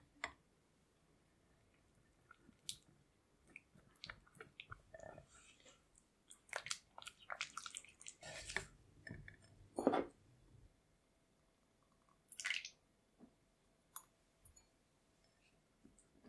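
A spatula stirring melting chocolate and butter in a glass bowl set over hot water: soft, sticky squishing and scraping sounds that come in irregular bunches, with a few light taps of the spatula against the bowl.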